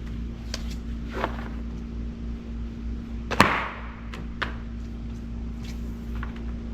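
A few short knocks and clicks of handling, the loudest about three and a half seconds in, over a steady low hum.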